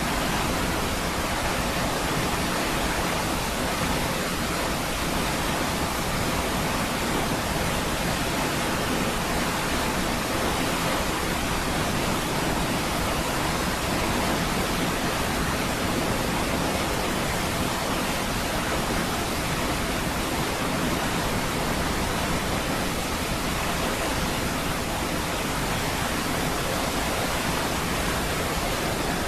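Niagara Falls: a large waterfall's falling water, a steady, even rush of noise that does not change.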